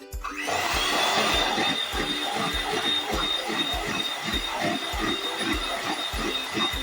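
Electric hand beater switching on just after the start, then running steadily with a high whine as it whips cream. Background music with a steady beat plays underneath.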